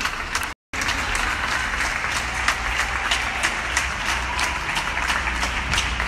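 Many neighbours clapping together from the windows and balconies of surrounding apartment buildings, a dense, steady applause of many hands. The sound cuts out completely for a moment about half a second in.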